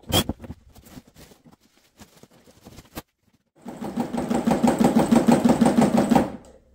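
A few light clicks and knocks of parts being handled, then a small electric motor runs for about two and a half seconds in the second half with a fast, steady rattle, and stops abruptly.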